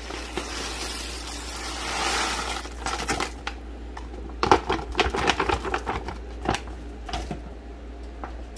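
Freeze-dried meal (rice, vegetables, chicken, cheese-sauce powder) pouring out of its pouch into a stainless steel pot of just-boiled water: a steady hiss at first, then from about three seconds in a run of sharp crinkles and taps as the pouch is shaken empty.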